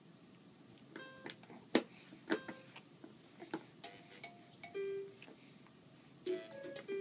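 A baby's electronic toy sounding short musical tones and jingles, among scattered clicks and knocks from the toy being handled.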